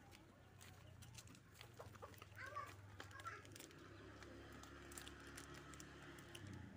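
Faint chicken clucking, a few short calls about halfway through, over a low steady hum.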